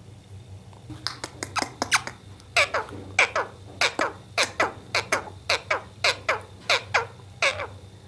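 Indian ringneck parakeet giving a long run of sharp squawks, each falling steeply in pitch. The first few come quickly, then they settle into steady pairs at about two calls a second.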